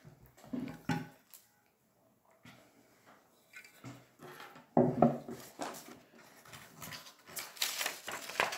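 Objects handled on a wooden tabletop: a few short knocks, the loudest about five seconds in as a large spiny seashell is set down on the wood. A stiff paper card viewfinder rustles near the end.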